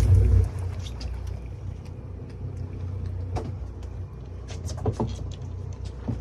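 Mercury outboard engines idling with a steady low hum, louder in the first half second, with a few short knocks scattered through.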